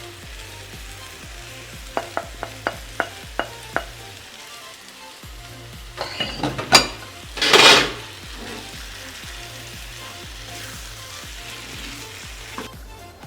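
Curry sauce with chicken simmering in a pot, a steady sizzle. A spoon taps the pot rim about seven times a couple of seconds in. Near the middle it knocks a few more times and then scrapes loudly through the pot for about a second while stirring.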